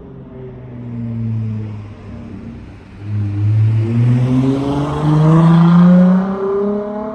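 Dodge Charger SXT's V6 exhaust through Flowmaster Super 10 mufflers, running steadily at first, then accelerating from about three seconds in. The pitch climbs and the sound gets louder, peaking near six seconds before easing off.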